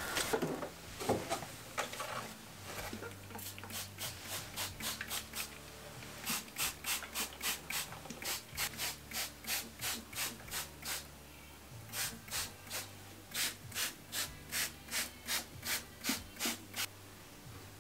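Evenly repeated rasping strokes, about two to three a second, with a couple of short breaks, over a low steady hum.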